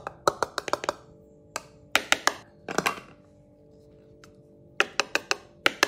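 Quick runs of sharp taps, a spoon knocking against the bowl as flour is spooned into a batter. Soft guitar background music runs underneath.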